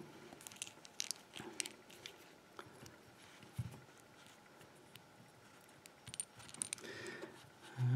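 Scattered light metallic clicks and taps as a brass Lockwood padlock's steel shackle is fiddled back into its body while the small release pin is held down with a pushpin.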